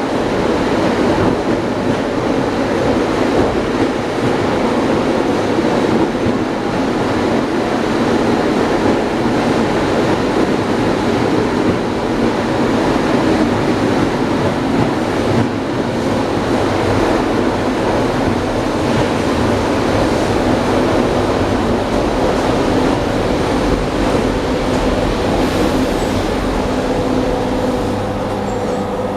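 Wheels of an ED9M electric commuter train clattering over the rail joints at speed, heard inside the car's vestibule with a steady rumble. Near the end a steady hum comes in and the noise eases a little.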